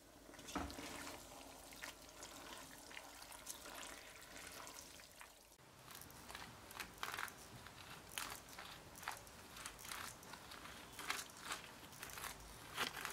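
Food and kitchen utensils being handled: a run of faint clicks, scrapes and rustles over a light hiss, more frequent in the second half.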